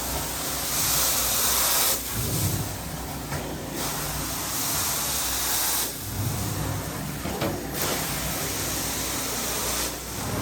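Carpet hot water extraction: the wand sprays and sucks with a strong hiss, in strokes that swell and fall back about every two seconds.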